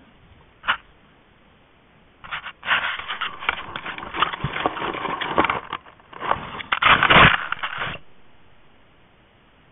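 Black bear nosing and pawing at a trail camera. Its fur and claws rub and scrape against the camera housing in a run of rough scraping and crackling bursts from about two seconds in until near the end, loudest toward the end, after a single short click under a second in.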